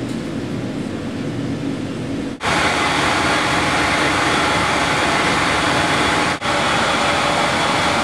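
Steady machine hum, then from about two and a half seconds in a louder, even rushing noise of a Uniconfort biomass boiler running, heard at its furnace with wood chips burning on the moving grate.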